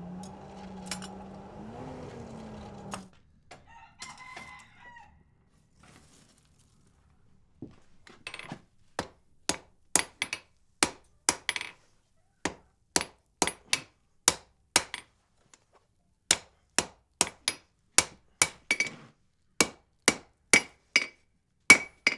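A rooster crows once for about three seconds. Then, from about eight seconds in, a hand hammer strikes hot wrought iron on an anvil: a steady run of sharp blows about two a second, some with a short ring.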